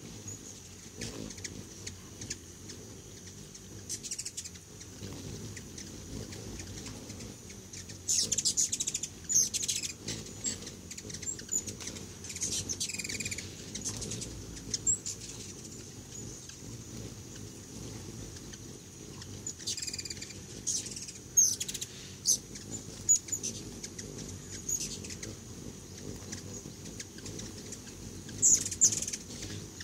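Hummingbirds squabbling at a feeder: several bursts of high, rapid squeaky chips and chatter, the loudest ones near the start of the second third and just before the end.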